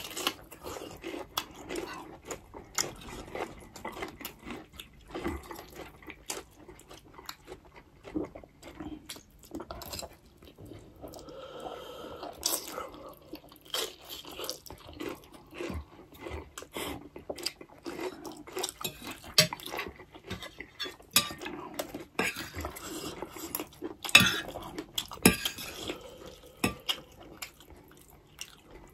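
Metal forks clinking and scraping irregularly against ceramic plates while noodles are twirled, with chewing and noodle slurping in between.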